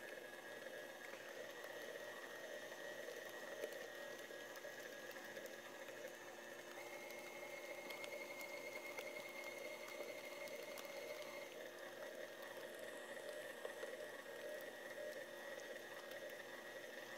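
Stand mixer motor running steadily with its paddle beating choux paste while beaten eggs are added a little at a time. Its whine steps up in pitch about seven seconds in and drops back down a few seconds later.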